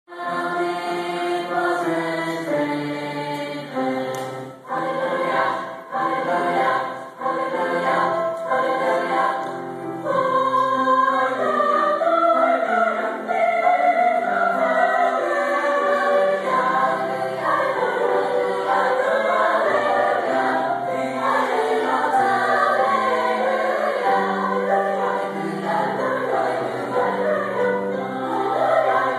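High school choir singing a piece in many parts, led by a conductor, heard in a school auditorium. The sound grows fuller and louder about ten seconds in.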